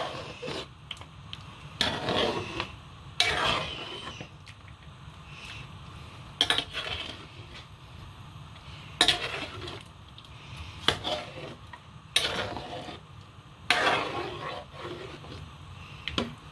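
A metal spoon stirring a large pot of soup: irregular clinks and scrapes of the spoon against the pot's sides and rim, some strokes lasting about half a second, over a steady low hum.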